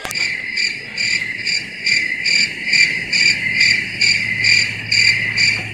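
Cricket chirping in an even rhythm, about two short chirps a second.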